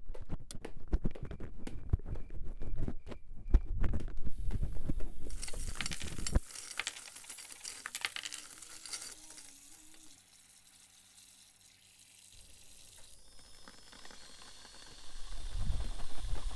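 Layered sound-effects soundscape: rapid metallic clinks and clicks, overlapped partway through by a high hiss, then a near-silent pause, then low thuds near the end.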